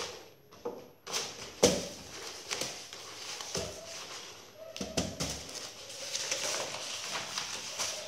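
Stiff black chart paper rustling as it is unrolled and handled, with a few knocks from things being moved on the table, the loudest about a second and a half in.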